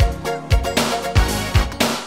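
Upbeat Japanese pop song playing an instrumental passage: a punchy kick drum and bass groove under sustained chords.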